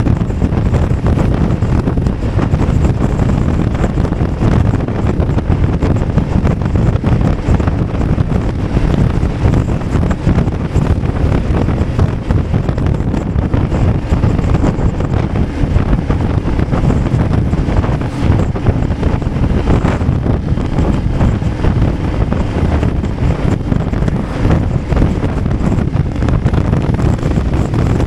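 Loud, steady wind rush on the microphone of a BMW F 850 GS motorcycle riding at road speed, with the bike's engine and road noise underneath.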